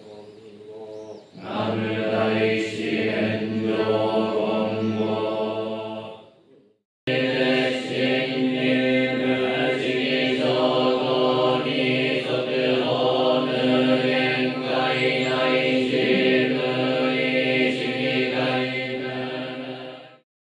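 Buddhist monks chanting a sutra together on one steady low pitch. The chant breaks off about six and a half seconds in, starts again abruptly half a second later, and fades out near the end.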